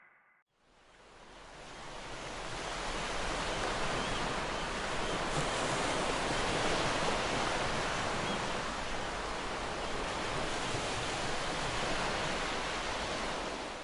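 Steady rush of sea surf, fading in over about two seconds and fading out just before the end.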